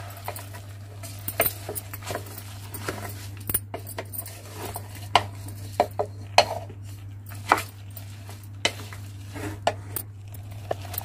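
Spoon stirring rice and vegetables in a pressure cooker pot, with irregular clinks, knocks and scrapes against the metal as the rice is fried in oil.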